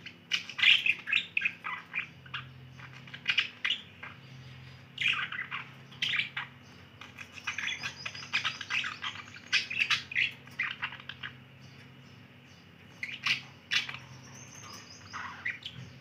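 Budgerigars chattering in quick bursts of short chirps and warbles, with a brief lull a few seconds before the end.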